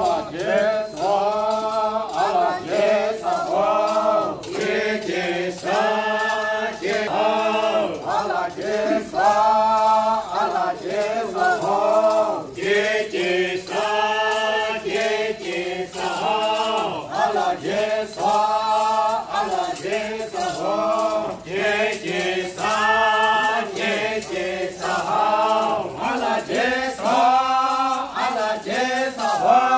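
A mixed group of men and women singing a Naga folk chant together without instruments, in short phrases repeated over and over.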